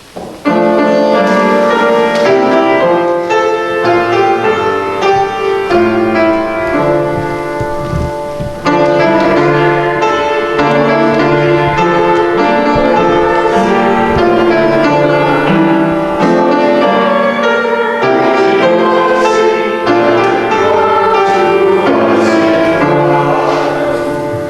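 Piano playing a hymn tune in slow, sustained chords, starting abruptly about half a second in.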